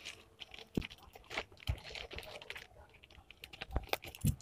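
Plastic courier mailer being handled and cut open with scissors: scattered faint crinkles and clicks, with a couple of stronger knocks near the end.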